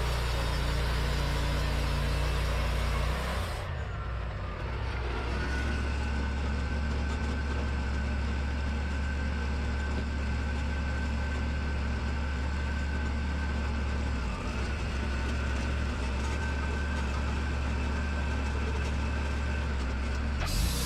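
Wood-Mizer LT40 band sawmill running, its engine giving a steady low hum. About three and a half seconds in the sound changes abruptly, and from about five seconds a thin steady whine runs over the engine until another abrupt change near the end.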